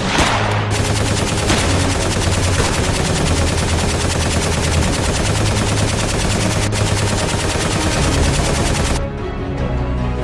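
Sustained rapid automatic gunfire, a dubbed sound effect, over background music; it stops abruptly about nine seconds in, leaving the music.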